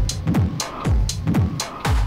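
Electronic music with a steady beat: deep kick drums that drop in pitch, about two a second, with crisp hi-hats between them.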